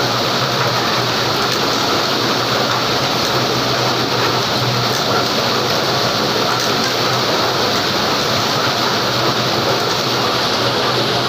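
Dog treadmill running steadily under a running dog: an even rushing whir with a low motor hum underneath.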